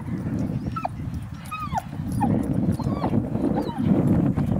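A dog whining in a series of short, thin whimpers that bend up and down in pitch, about seven of them, over a steady low rumble.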